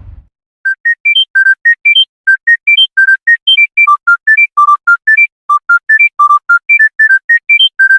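Smartphone ringtone: a fast electronic melody of short, clean beeps, about five notes a second, running up and down in quick repeating phrases. It starts just under a second in, as the tail of a noisy burst dies away.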